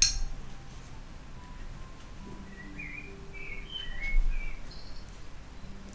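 A few short, high chirps from a bird, faint against a quiet room, about halfway through.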